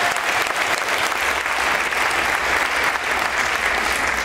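Audience applauding and cheering, the clapping dense and steady.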